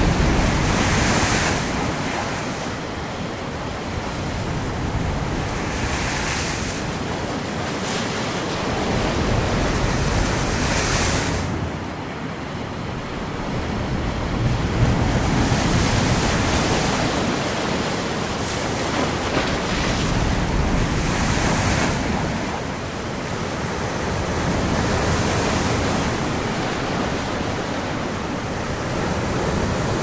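Stormy sea surf: a continuous rush of water with waves breaking and washing in about every five seconds.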